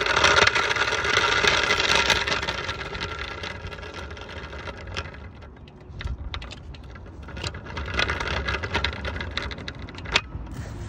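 Hoverboard go-kart rolling over rough, cracked asphalt: a steady rushing rumble of the small hard wheels with the frame rattling. It is loudest for the first few seconds, eases off, swells again about six seconds in, and a few sharp knocks come as it goes over bumps.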